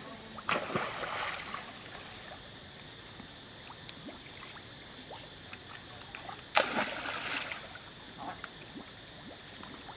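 Macaques splashing in pond water: a splash about half a second in and a second, louder one about six and a half seconds in, each lasting about a second.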